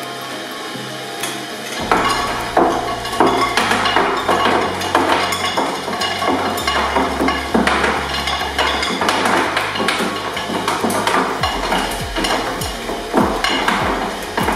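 Twin-shaft shredder running with a steady motor whine, its steel cutter discs cracking and crunching through a frozen bunch of small round fruit. The dense, irregular crunching starts about two seconds in and keeps going as the fruit is pulled down between the blades.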